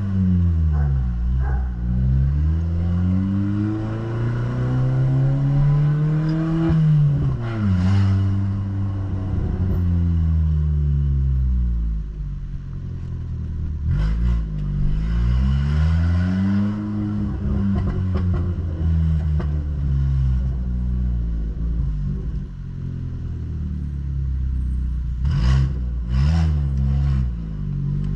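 Ford New Fiesta's engine and exhaust, with a diffuser fitted ahead of the mufflers, rumbling as the car pulls through the gears. The revs climb for several seconds and drop at a shift about seven seconds in, climb again midway, then fall away. A few sharp clattering knocks come near the end.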